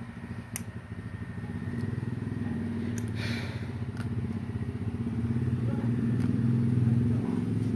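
A motor vehicle engine, likely a motorcycle, runs steadily with a fine pulsing hum and grows gradually louder. A few light metallic clicks come through on top of it.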